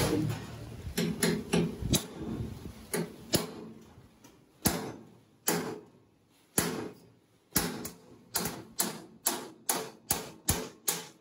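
Hand hammer tapping on sheet metal in a body shop: single sharp strikes with short ringing, irregular at first, then a steady run of about three taps a second in the second half.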